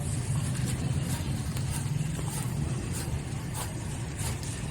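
An engine running steadily: a low, even hum with faint scattered ticks.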